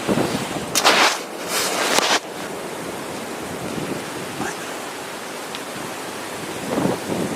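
Wind rushing over the microphone as a steady hiss, with two louder bursts of rushing noise about one and two seconds in.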